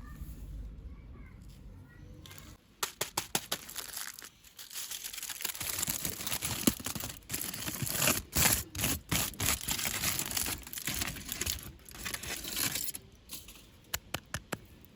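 Plastic toy packaging being crinkled and torn open by hand, a dense run of sharp crackles and rustling that starts about three seconds in, with a few separate clicks near the end.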